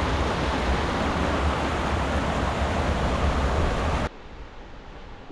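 Loud, steady rushing noise with a heavy low rumble, cutting off suddenly about four seconds in and leaving quieter outdoor ambience.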